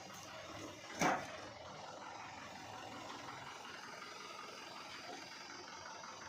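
A single sharp knock about a second in, over a steady mechanical hum.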